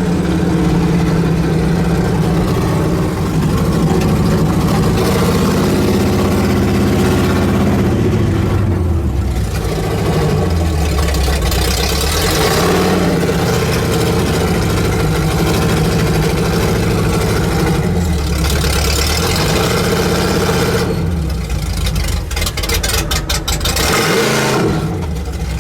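Mud-bog truck's engine, heard from aboard, running hard and revving up and down several times as it drives through the bog, with a stretch of rapid rattling near the end.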